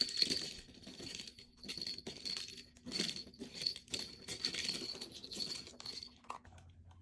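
Irregular rattling and clinking of small hard objects, in uneven bursts with a faint high ring, stopping about six seconds in.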